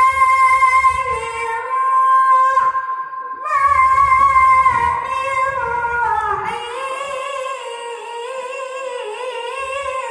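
A boy's high voice chanting Qur'an recitation (qiroah) into a microphone, holding long drawn-out notes, breaking briefly about three seconds in, then turning to a wavering, ornamented line before the phrase fades.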